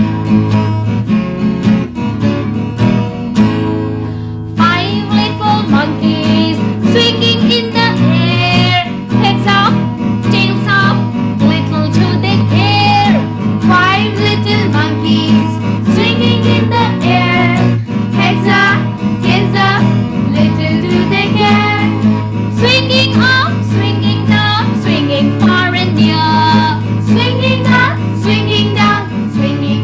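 Young voices singing a children's poem in English together over a strummed guitar accompaniment, with a short instrumental break about three seconds in.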